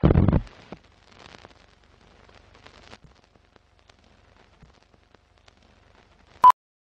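Film-leader countdown sound effects: a loud low thud at the start, then faint crackle and scattered clicks like old film running, and one short high beep near the end.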